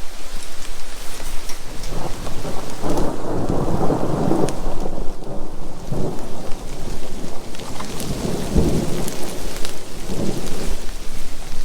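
Thunder rumbling in rolling waves over steady rain, with scattered raindrop ticks; the heaviest rumble comes about eight and a half seconds in.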